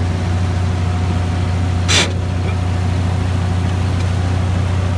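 Engine of a 2½-ton military 'deuce' truck running steadily at a fast idle. A brief sharp noise cuts across it about two seconds in.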